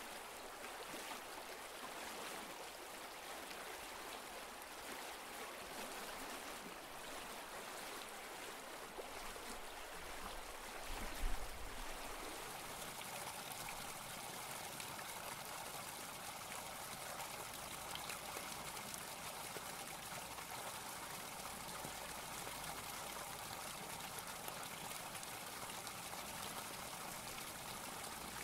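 Pond fountain jetting spray that falls back onto the water: a steady rush of splashing water. A single brief thump comes partway through.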